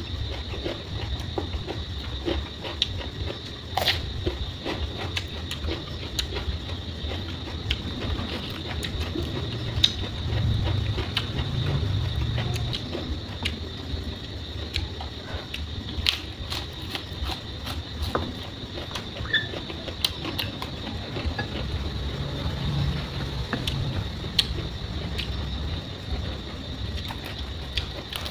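A person chewing and crunching raw cucumber and lettuce close to the microphone: a steady stream of small crisp crunches and wet mouth sounds.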